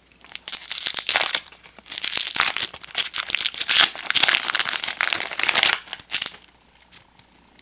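Foil wrapper of a 1991 Topps Stadium Club baseball card pack torn open and crinkled by hand, a dense crackling that lasts about six seconds and stops as the cards come out, leaving a few light clicks.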